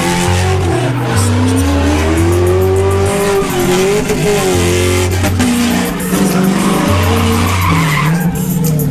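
A Pontiac GTO doing donuts: its engine revs with pitch swelling up and down as the spinning rear tyres screech continuously, with music carrying a deep, stepping bass line underneath.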